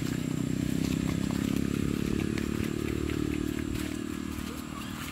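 Motorcycle engine running steadily, fading from about three seconds in as it moves away, with light clicks and scuffs over it.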